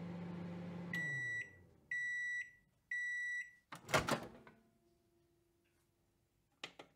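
Microwave oven running with a steady hum that winds down as the timer reaches zero, then three high beeps about a second apart signalling the end of the cycle. A clunk and rattle follows, the door being opened, and a couple of faint clicks come near the end.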